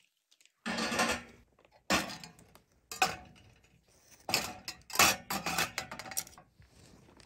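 Metal camping mugs, small ceramic cups and utensils being set down one after another in a stainless steel wire dish rack: a series of about six clattering knocks and clinks, roughly a second apart.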